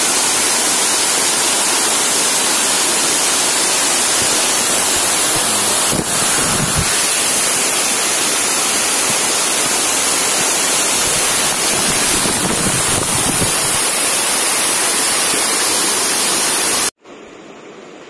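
Waterfall cascading down a rock face, close by: a loud, steady rush of water. Near the end it cuts off abruptly and gives way to a much quieter steady rush of water.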